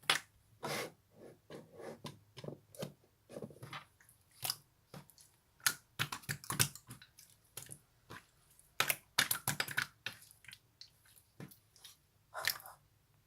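Slime being squeezed and worked by hand, giving irregular wet clicks, squelches and small air-bubble pops, some much louder than others.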